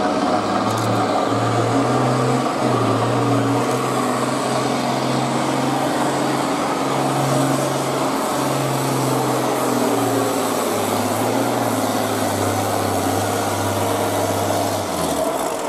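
International Harvester 1086's six-cylinder diesel pulling a weight-transfer sled at full throttle, a loud, steady engine note. About eleven seconds in its pitch drops as the engine slows under the load, and near the end the engine note falls away as the pull ends.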